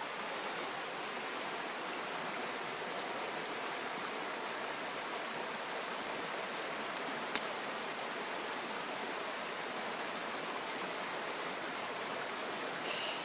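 Shallow stream rushing steadily over stones, with a single sharp click about seven seconds in.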